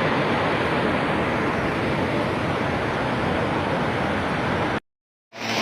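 Heavy rain pouring down in a steady, loud hiss. About five seconds in, the sound cuts out completely for half a second, then resumes.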